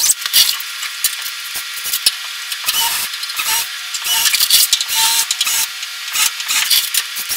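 A cordless drill boring into rusted truck-cab sheet steel. The bit cuts in a series of short bursts that start and stop, with a gritty, scraping metal-cutting sound.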